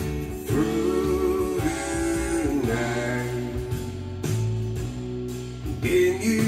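Guitar-led song playing through a pair of two-way loudspeakers as a listening sample.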